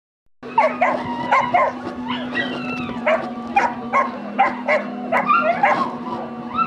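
A dog barking in a rapid string of short, high yips, about two to three a second, over a steady low hum.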